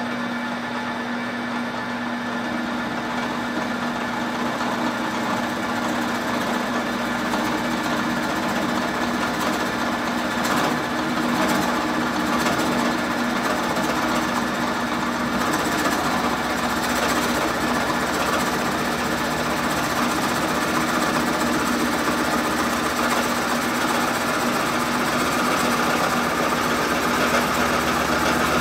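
Drill press running with a 1 3/8-inch Forstner bit, slowly boring an angled through-hole in a pine board. A steady motor hum carries the bit's cutting noise, which grows a little louder near the end.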